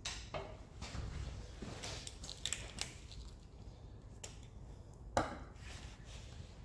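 Metal tools and engine parts clinking and knocking during an engine strip-down: a run of sharp clicks and knocks, the loudest about five seconds in.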